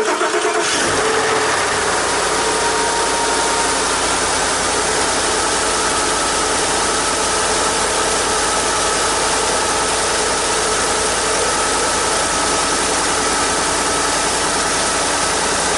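2013 Ford F-150's 5.0 V8 engine idling steadily just after a cold start, running on Amsoil 5W-20 synthetic oil; the owner judges it runs quiet.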